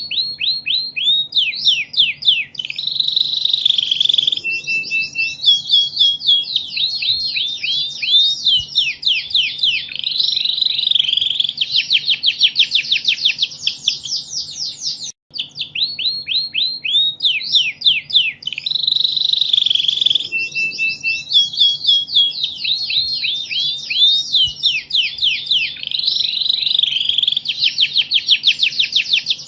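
Domestic canary singing non-stop: a long, loud song of rapid trills and runs of fast downward-sweeping notes, with a brief break near the middle after which the same passage repeats.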